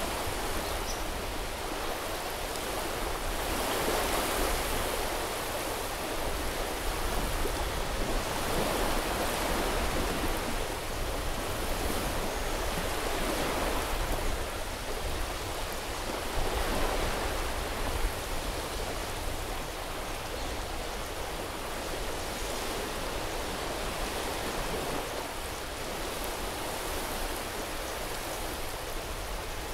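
Sea waves washing onto a beach: a steady hiss of surf that swells and ebbs every four or five seconds.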